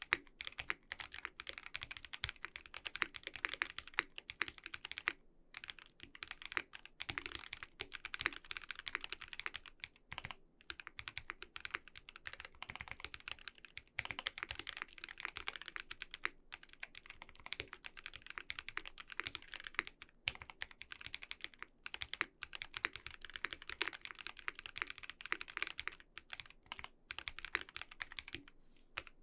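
Steady typing on a mechanical keyboard with lubed NovelKeys Cream linear switches in a full brass plate, GMK keycaps and foam-damped case: a fast run of keystroke clacks, broken by a few short pauses.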